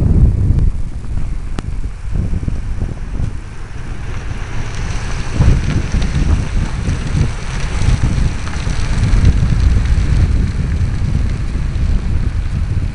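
Wind buffeting the microphone of a camera riding on a Flyzone Cessna Skylane RC plane in flight, an uneven, gusting low rumble with a faint hiss above it from a few seconds in.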